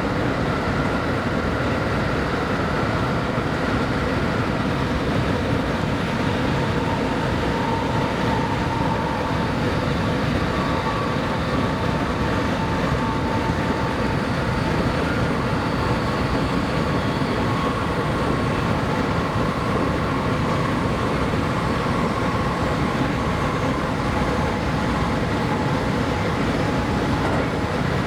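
Interior sound of a JR West Special Rapid electric train running along the line: a steady rumble of wheels and running gear, with faint whining motor tones that drift slowly in pitch.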